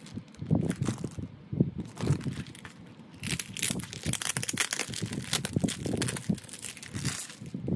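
Clear plastic bag crinkling and rustling as hands pull a round hand fan out of it, densest and loudest in the second half. A few soft knocks from handling come in the first few seconds.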